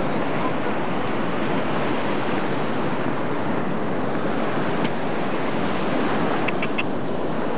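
Steady rush of surf and wind on the microphone, with a few faint clicks near the end.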